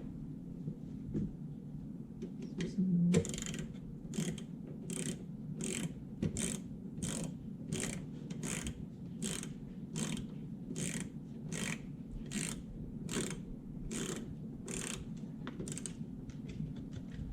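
A hand ratchet tightening screws, clicking in a steady rhythm of about one and a half strokes a second; the clicking starts about three seconds in and stops shortly before the end.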